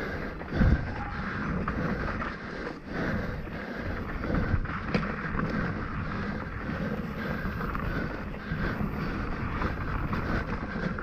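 Mountain bike riding over a dirt singletrack: tyre rumble and the bike rattling over bumps, with wind buffeting the microphone. A heavy knock comes near the start.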